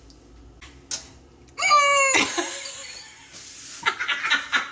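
A person makes a loud, high-pitched vocal squeal a little over a second in, held for about half a second and dropping in pitch at the end, then trailing off in breath. Choppy laughter starts near the end.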